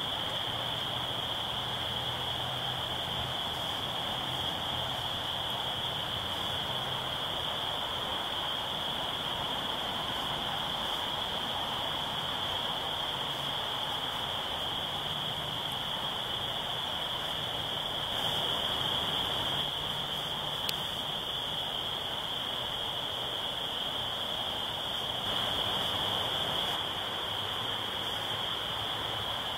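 Dense, steady chorus of many spring peepers calling together, a high-pitched peeping that swells slightly a couple of times, over a faint low hum.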